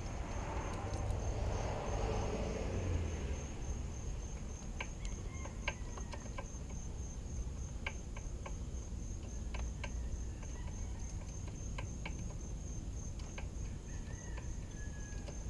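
Small clicks and rustling of hands working an ignition coil loose from an outboard's powerhead, with handling noise heaviest in the first few seconds. Under it runs a steady high, pulsing chirp.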